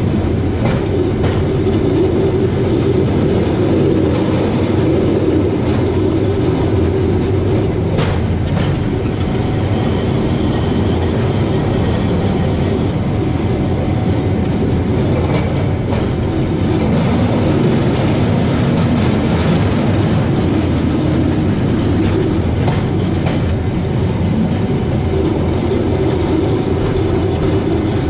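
Rail bike rolling along the track with a steady rumble of steel wheels on the rails, and a few sharp clicks over the rail joints.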